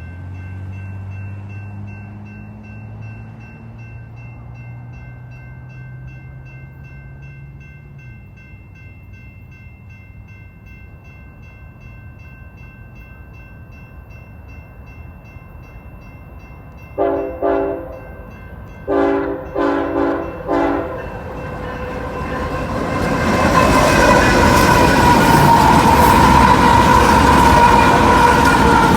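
Union Pacific freight train led by a GE ET44AH locomotive sounding its air horn in six short blasts: two quick ones a little past halfway, then four more about two seconds later. The train's engines and wheels then grow loud as the locomotives draw close.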